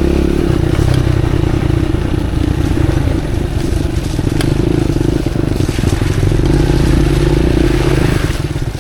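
Motorcycle engine running steadily at low revs while riding a muddy trail, with a few brief clicks and rattles over it.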